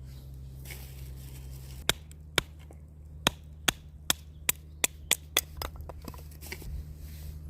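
Firewood being chopped: about nine sharp knocks that come faster and faster, then a few lighter taps.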